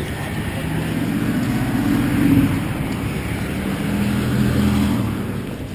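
City street traffic: the engine hum and tyre noise of passing motor vehicles, swelling as one goes by about two seconds in and another about four and a half seconds in.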